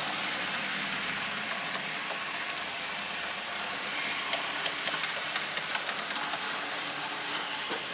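N-scale model trains running round the track: a steady whir of their small locomotive motors and wheels, with many faint clicks as the wheels pass over the rail joints.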